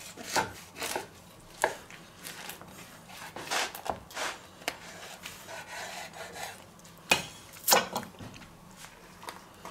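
Chef's knife sawing through a crusty cheese roll and burger filling onto a wooden cutting board: irregular crunching strokes of the crust with knocks of the blade on the board, and a couple of louder knocks near the end.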